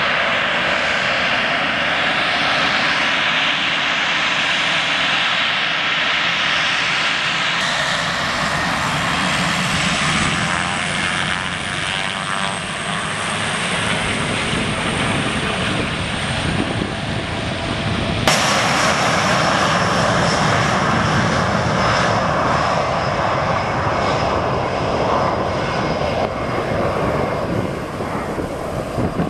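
Pilatus PC-12's single turboprop engine running steadily as the aircraft taxis past. About 18 s in the sound cuts abruptly to a twin-engine business jet's engines at high power as it starts its takeoff roll.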